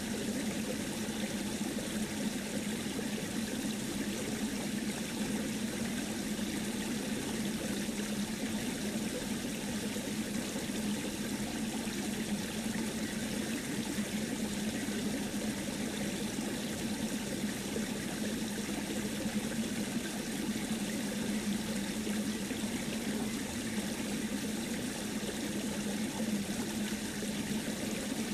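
Steady running water, like a stream, unchanging throughout.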